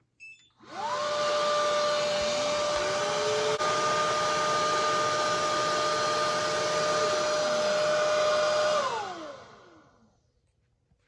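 Wet-dry floor cleaner switched on with a short beep, its suction motor and brush roll spinning up to a steady high whine over a rushing hiss. A lower tone winds down about seven seconds in, then the motor winds down and stops about two seconds later.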